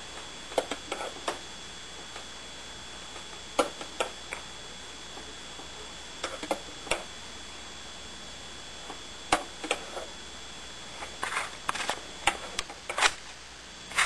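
A metal spoon tapping and scraping against a milk pitcher and a ceramic mug as frothed milk foam is spooned into the cup: short, sharp clinks, singly and in small clusters every few seconds, busiest near the end.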